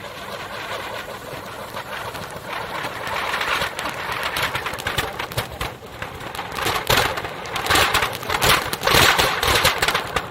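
Anar fountain firecrackers spraying sparks on the blades of a running table fan: a steady hiss that grows louder over the first few seconds, breaking into dense crackling from about six seconds in.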